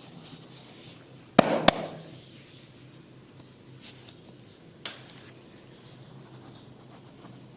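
Barber's hands rubbing over the scalp and skin during a head massage. About a second and a half in come two loud, sharp clicks in quick succession, and two fainter ones follow a few seconds later.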